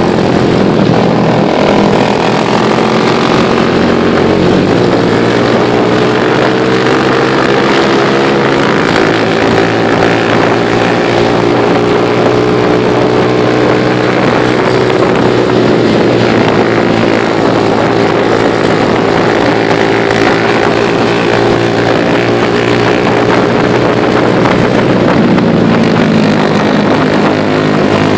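Motorcycle engine running while riding downhill, with road and wind noise throughout. The engine note steps abruptly twice in the first nine seconds, then holds with slow rises and falls.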